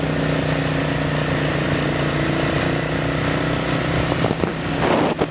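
Small motor-scooter engine running steadily at cruising speed, a constant even hum, with a brief rush of rougher noise near the end.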